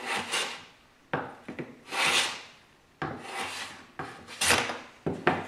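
Stanley No. 5 hand plane cutting across the grain of a wooden board, about six short strokes of roughly half a second each as the blade shaves the wood.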